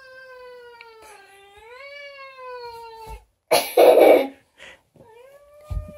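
Domestic cat yowling in long, drawn-out wavering moans, the protest of an annoyed cat being held. A loud, rough burst of noise comes about three and a half seconds in, then another long yowl begins near the end.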